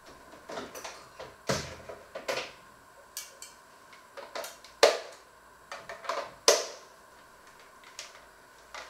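Irregular knocks and clatter of kitchen items being handled and set down, two sharper knocks standing out about five and six and a half seconds in.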